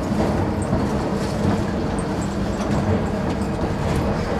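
Von Roll cable-hauled funicular car riding up its track, giving a steady rumble of wheels on the rails with a few light ticks.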